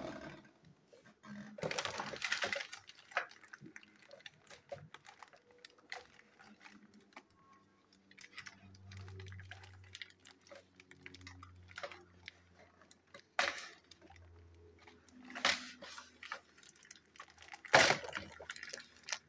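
Hands handling clear plastic toy-train packaging: scattered clicks, taps and short rustles of the plastic. There are a few louder rustling bursts, one about two seconds in and several near the end.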